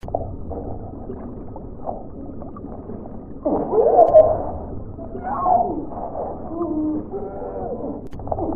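Whale song sound effect: slow, gliding calls over a steady low hiss, muffled with no high end. The calls are loudest around the middle.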